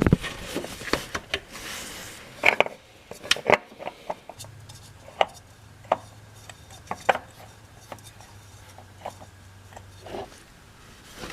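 A new spin-on oil filter being threaded on and tightened by hand: scattered light clicks, knocks and rubbing, with a faint steady low hum in the middle.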